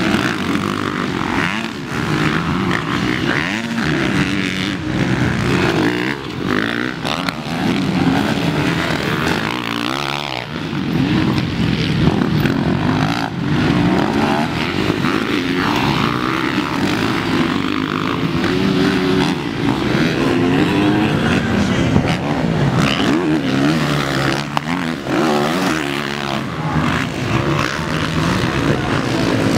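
Several motocross bikes' engines revving as they race past on a dirt track, their pitch rising and falling as they accelerate and shift, with several engines overlapping throughout.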